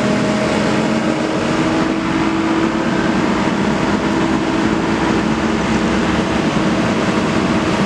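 Komatsu PC200 hydraulic excavator's diesel engine running steadily, a continuous loud hum with a few steady tones in it.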